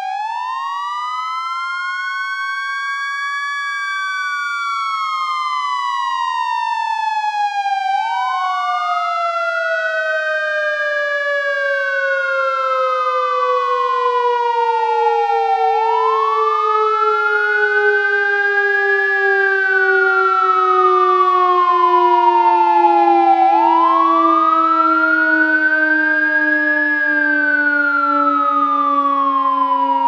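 Fire truck siren wailing: a tone that sweeps up and back down about every eight seconds, over a lower tone that slowly sinks in pitch. It grows slightly louder as it goes.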